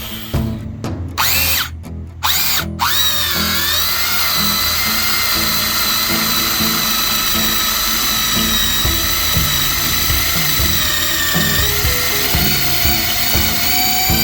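Vintage electric drill motor blipped on and off a few times, then running steadily with a high whine.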